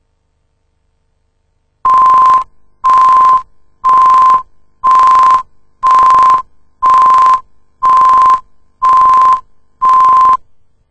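Countdown-leader beeps on a broadcast video tape: nine short beeps of one steady test tone, one a second, sounding with each number as the leader counts down from ten to two.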